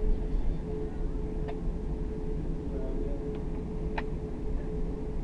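Cabin noise inside an Airbus A340 taxiing: a steady low rumble of the engines and airframe with a steady hum, broken by a few sharp clicks of rattling cabin fittings, the loudest about four seconds in.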